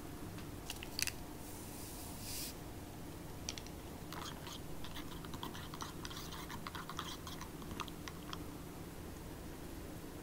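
A thin wooden stirrer swirling in a ceramic cup of hot water, with many light, irregular clicks as it knocks against the inside of the cup while powdered medicine is stirred in. A brief rustle comes about two seconds in.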